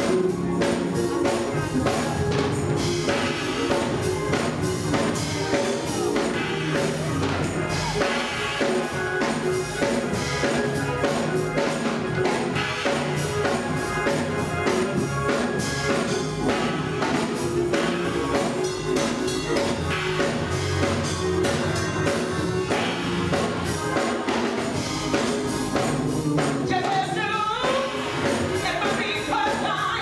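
Gospel choir singing with keyboard accompaniment and percussion keeping a steady beat. A lead singer's voice comes in over the choir near the end.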